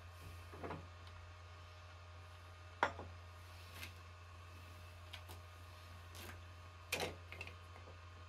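Scattered light clicks and knocks from handling a dial indicator set on a valve-guide pilot in a milling machine spindle, the sharpest about three seconds in and a double knock about seven seconds in, over a steady low hum.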